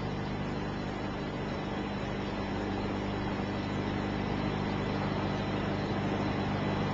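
Steady low hum with an even hiss from an old recording, and no voice.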